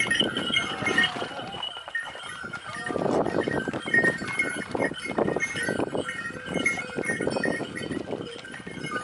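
Pack horses walking down a rocky trail: irregular hoof strikes on stone, with bells ringing steadily over them.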